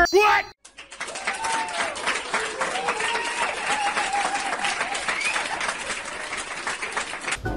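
A crowd applauding, many hands clapping with cheering voices over it. It starts about half a second in and cuts off suddenly near the end.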